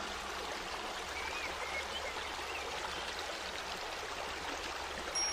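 River or stream water flowing in a steady, even rush.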